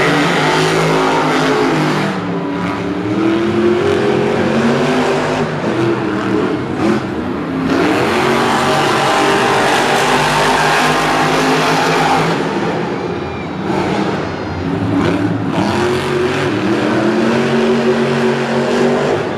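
Monster truck engines, supercharged methanol-burning V8s, running hard and revving, their pitch repeatedly climbing and dropping as the trucks race.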